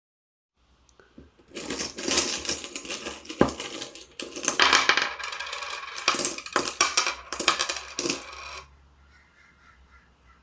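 A dense clatter of many small hard objects clinking and jingling together, rising and falling in several surges for about seven seconds before stopping abruptly.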